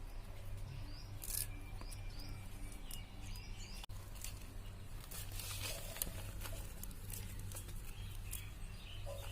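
Small birds chirping in short, quick up-and-down calls over a steady low hum, with scattered light clicks and taps.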